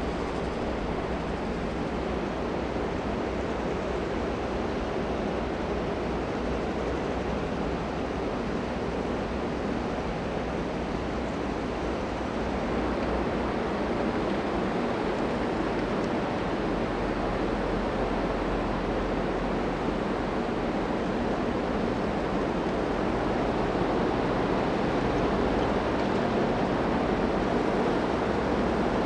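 Steady rush of water washing along the hull of a passing ultra-large container ship, with wind and a low engine hum underneath. It grows a little louder about halfway through, as a harbour tug comes alongside.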